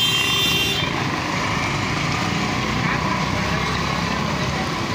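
Samosas deep-frying in a large karahi of hot oil, a steady bubbling sizzle mixed with street traffic noise. A high whining tone cuts off about a second in.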